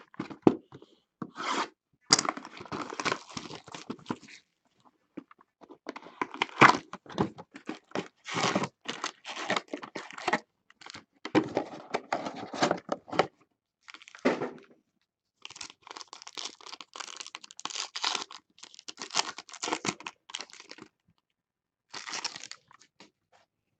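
Hands tearing open and crinkling the wrapping of a 2017 Topps Tribute baseball card box and its sealed pack: irregular runs of tearing and crinkling with short pauses between them.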